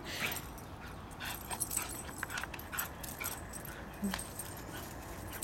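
Greyhound giving a few faint, short whimpers while playing, with light scattered clicks.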